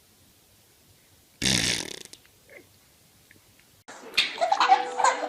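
A baby's fart: one short, loud blast about a second and a half in, lasting about half a second. Laughter starts near the end.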